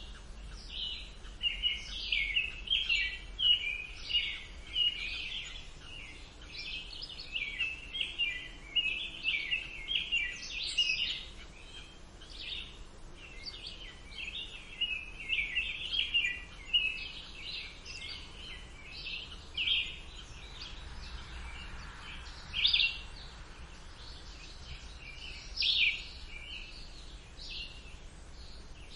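Songbirds chirping and singing in quick runs of short, high notes, very busy for the first dozen seconds and then sparser, with a few louder calls near the end. A faint low steady rumble lies underneath.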